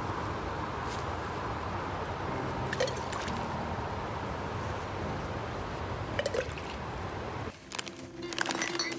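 Steady, even rushing outdoor background noise with a couple of faint clicks. It drops off abruptly near the end, leaving a few soft handling clicks.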